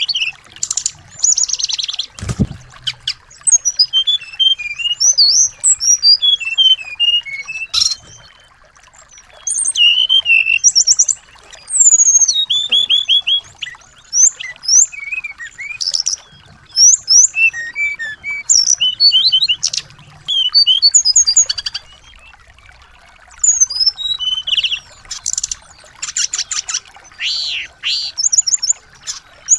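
Small songbirds singing in bursts of quick, high chirps, trills and whistles with short pauses, a bird-tutoring (masteran) song track. A brief low thud sounds about two seconds in.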